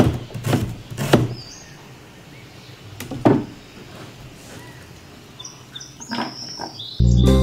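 Chef's knife slicing a white onion on a plastic cutting board: three sharp knocks about half a second apart at the start, and one more about three seconds in. Music starts abruptly near the end.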